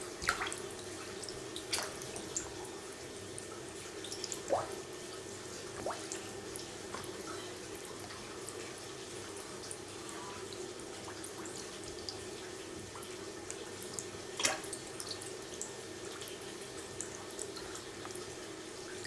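Water running and trickling steadily in a walking catfish tank, with scattered drips and sharper splashes at the surface, the loudest about four and a half and fourteen and a half seconds in.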